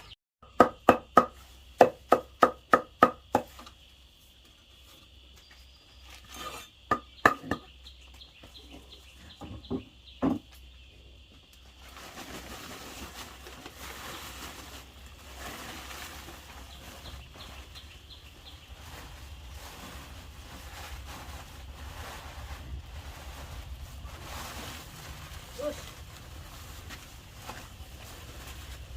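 A quick series of sharp knocks, about two a second, then a few scattered knocks. From about twelve seconds in there is a steady rustling noise.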